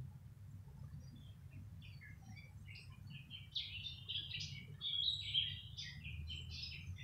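Small birds chirping, short rapid calls that grow busier from about halfway through, over a low steady background rumble.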